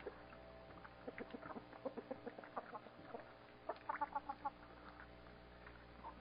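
Chickens clucking: a string of short clucks between about one and three seconds in, then a quicker, higher-pitched run of clucks about four seconds in, over a faint steady hum.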